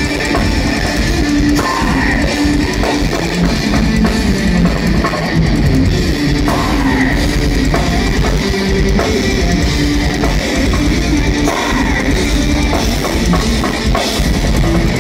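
Thrash metal band playing live, heard from the audience: loud distorted electric guitars over fast drums and cymbals.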